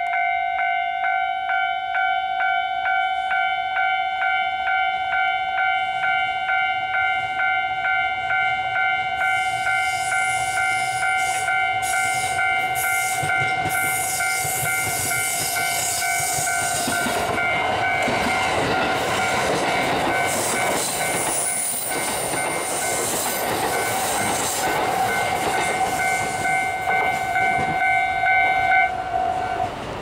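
Railway level-crossing warning bell ringing with a pulsing electronic tone at about two strokes a second, stopping about a second before the end. From about 9 s an electric local train's wheels running on the rails join in, with a high squeal around 20 s as the train runs into the station.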